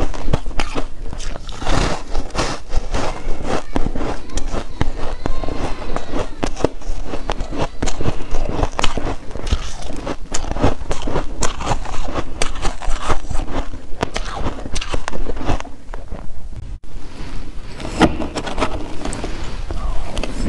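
Close-miked chewing of shaved ice flakes with dried rose petals: many rapid, crisp, irregular crunches. The sound cuts out briefly about three-quarters of the way through, then the crunching picks up again.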